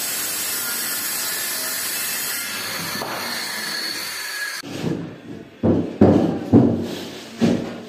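Handheld electric circular saw running and cutting through a wooden bed board, a steady whine and rasp that cuts off sharply about four and a half seconds in. Then a few loud thumps as the trimmed board is set down into the wooden bed frame.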